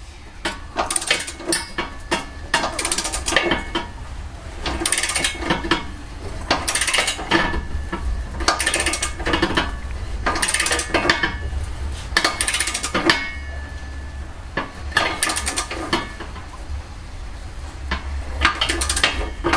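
Ratchet of a long click-type torque wrench tightening a trailer hitch's smaller bolts, in short bursts of clicks about every two seconds as each stroke is swung and reset.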